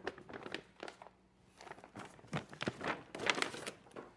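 Paper gift bag rustling and crinkling, with small knocks of a plastic box being handled, as a present is taken out of the bag; the rustling is busiest a little past three seconds in.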